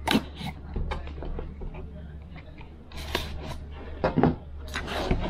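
A cardboard retail box being handled while its seal is slit with a folding multitool: a few sharp taps and knocks, then scraping bursts about three seconds in and again near the end.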